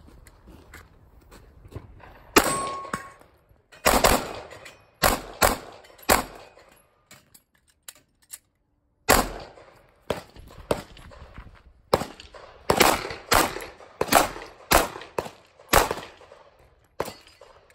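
Glock 43 9mm pistol firing a string of shots, recorded from close behind the shooter: five or six quick shots, a pause of about three seconds, then a steady run of shots about half a second apart.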